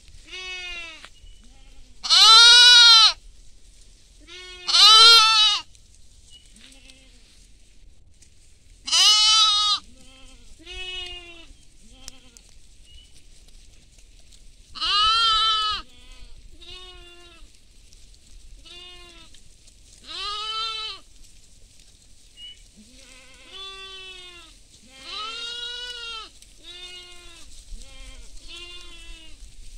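Sheep and goats bleating again and again, about twenty separate calls, each rising and falling in pitch. The loudest come about two, five, nine and fifteen seconds in, with fainter bleats in between.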